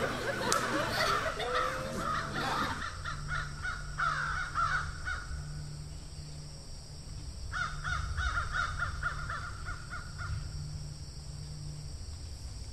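Crows cawing: a call about four seconds in, then a longer run of quick repeated caws from about halfway through.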